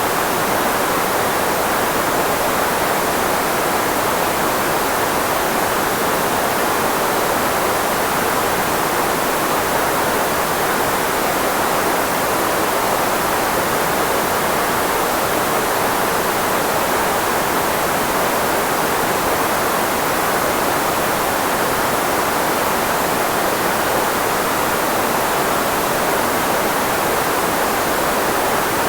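Steady filtered white noise, shaped to mask the frequencies of the human voice: an even hiss strongest in the middle range, with no change in level.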